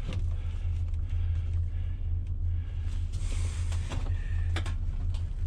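A vehicle engine idling with a steady low hum, with a few short knocks and a brief rustle as items are handled and packed in.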